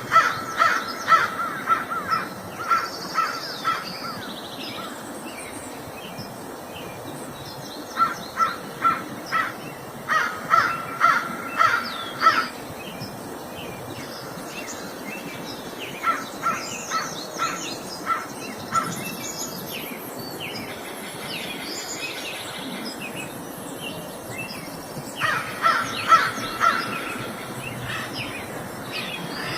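Crows cawing in five runs of rapid repeated caws, with pauses between them. Smaller birds chirp over a steady outdoor background.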